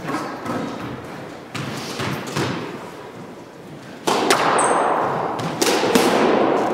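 Squash rally: the ball struck by rackets and smacking off the court walls, about six sharp hits, each with an echoing ring, the loudest from about four seconds in.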